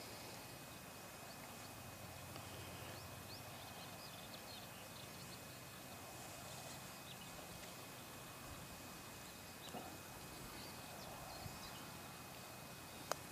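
Faint outdoor ambience with scattered short, high chirps, and one sharp click near the end.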